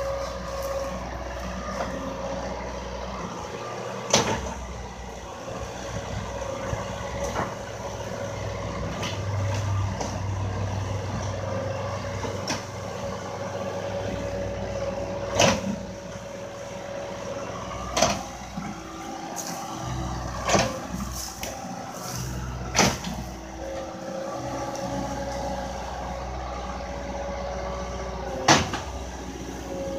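Skid-steer loader's diesel engine running steadily while it loads tree roots and debris into a tip truck, with about six sharp knocks scattered through.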